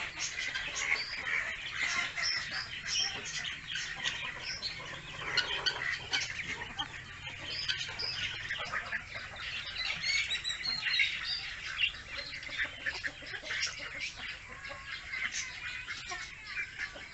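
A large brood of ducklings peeping continuously, many short high chirps overlapping as they feed.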